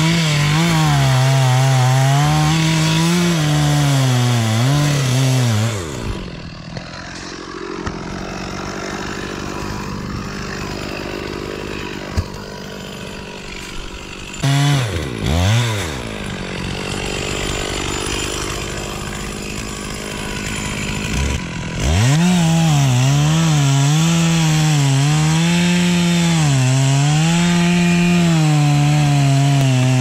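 Stihl MS 460 two-stroke chainsaw cutting through the base of a tree trunk during felling, at full throttle with its pitch wavering under load. About six seconds in it drops to a lower, quieter running, revs briefly up and down around the middle, then goes back to full-throttle cutting for the last eight seconds.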